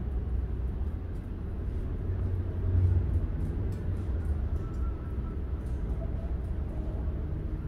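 Steady low background rumble, swelling a little about three seconds in, with a few faint light clicks.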